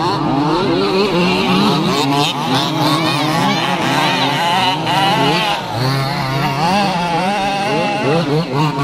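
Several 1/5-scale RC Baja trucks' small two-stroke petrol engines revving as they race round a dirt track, overlapping engine notes rising and falling as each driver throttles up and lifts off.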